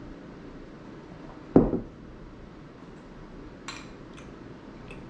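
Ceramic coffee mug and tableware on a wooden table: a loud thud about a second and a half in, then a lighter clink two seconds later and a couple of faint ticks, as the mug is set down after a drink.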